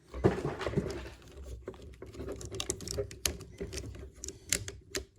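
Hard plastic parts of a Transformers Masterpiece Ratchet action figure being handled and adjusted, with many small irregular clicks and taps as pieces are moved and fitted into place.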